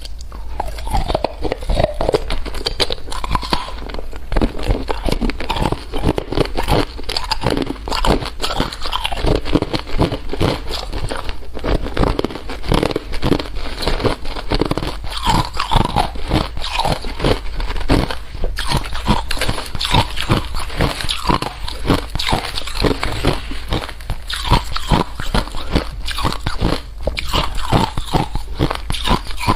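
A pet chewing dry, crunchy food. Its bites crack and crunch over and over in a quick, irregular run.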